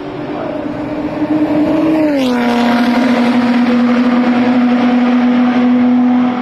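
Lotus Exige Cup 380's supercharged 3.5-litre V6 running on the track, getting louder over the first two seconds. Its engine note drops in pitch about two seconds in, then holds a steady pitch.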